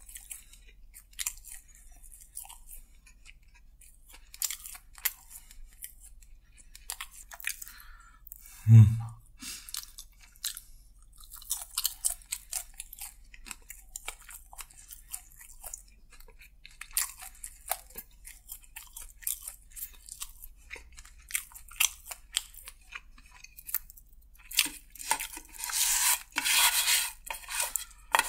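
Close-miked chewing of crispy fried chicken: scattered crunches and mouth sounds, with one brief low thump about nine seconds in. Near the end comes a dense run of loud crunching.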